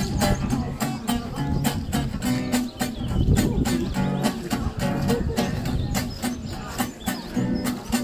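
Acoustic guitar strummed in a steady rhythm: an instrumental passage with no singing.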